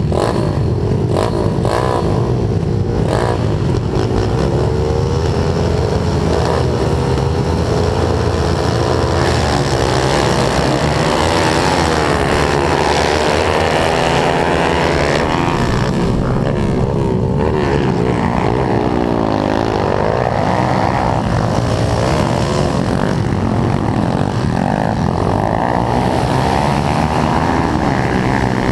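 Pit bike engines revving on the motocross start line and then racing off. The camera bike's own engine is loudest, rising and falling in pitch through the gears, with other pit bikes running around it.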